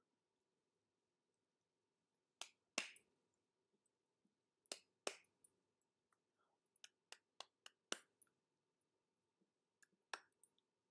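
Faint, sharp clicks and taps, about a dozen scattered through otherwise near silence, some in quick pairs, from hands and fingers knocking together during signing.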